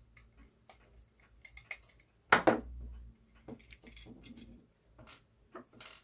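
Screwdriver backing out the small screws of a mortice sashlock's cover plate: a run of light metallic ticks and clicks, with one louder knock about two and a half seconds in.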